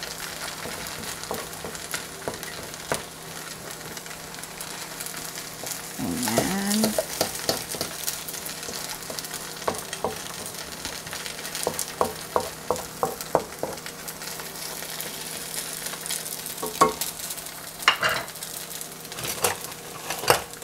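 Eggs and rice noodles frying in a hot nonstick pan with a steady sizzle, while a wooden spatula stirs and scrapes, scrambling the eggs. Small clicks of the utensils on the pan run throughout: a louder stretch of stirring about six seconds in, a quick run of light taps about two-thirds through, and a few sharper knocks near the end.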